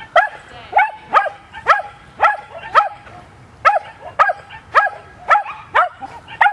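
A dog barking over and over in short, sharp barks, about two a second, with a brief pause near the middle.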